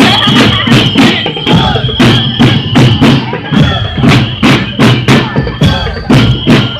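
Parade drums beating a steady, fast rhythm of about three to four strikes a second, with a high held tone sounding over the drumming.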